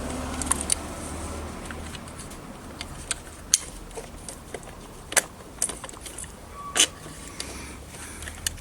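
Small metal and plastic parts clicking and clinking as a micro switch and its metal spring are worked into place by hand on a Kenwood Chef Elite KVC51 mixer's speed controller. Scattered sharp clicks, the loudest about seven seconds in, over a low hum.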